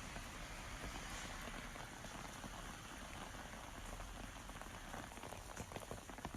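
Steady rainfall, with individual drops striking a surface as separate clicks toward the end.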